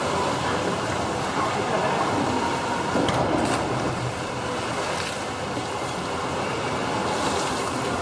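Indoor swimming pool sound: choppy pool water lapping and sloshing at the edge close to the microphone, over a steady noisy hiss.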